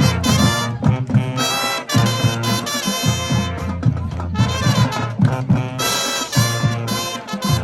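A band plays a swing-style tune: trumpets and trombones carry held and moving brass notes over a steady low drum beat.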